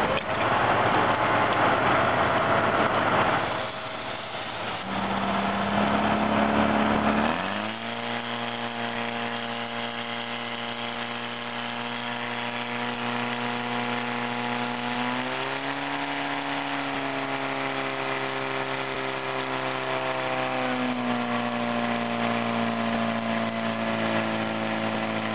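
Portable fire pump's engine running hard, driving water out through the hose lines. It is loudest and roughest for the first few seconds, then settles into a steady high drone. The pitch steps up a little about midway and drops back a little later as the load on the pump changes.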